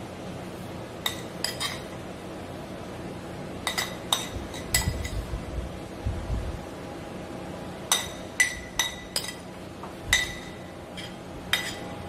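Metal spoon clinking against a ceramic plate and glass baking dish as grated cheese is scraped off the plate: about a dozen sharp, ringing taps at irregular intervals, with a low handling rumble around the middle.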